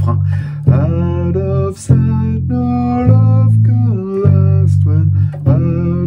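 Electric bass played fingerstyle, long low notes changing about once a second, along with the song's recording: a singing voice and a ticking cymbal over the bass line.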